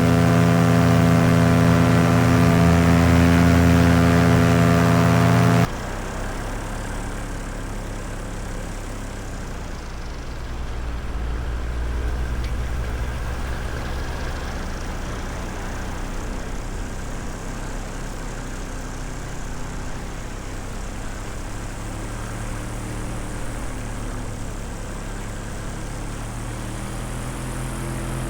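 Paramotor engine and propeller running at high power with a steady, loud drone. About five seconds in, the sound drops abruptly to a quieter, lower engine hum with wind noise, which picks up slightly near the end.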